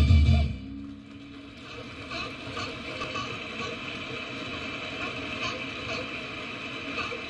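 Music cuts off about half a second in, leaving a steady faint hum with scattered light clicks.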